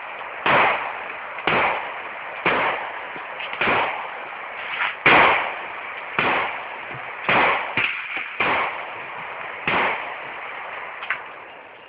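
Gunshots in steady succession: about nine loud shots, roughly one a second, each ringing out briefly, with a few fainter cracks between them.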